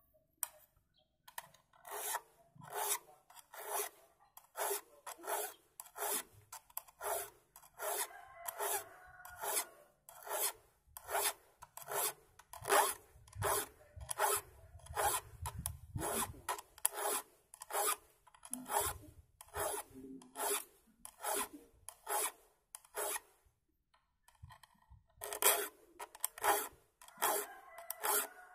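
A thin saw file rasping across the teeth of a wood-cutting handsaw in quick, even strokes, sharpening the saw tooth by tooth. The strokes come about three every two seconds, with a brief pause near the end.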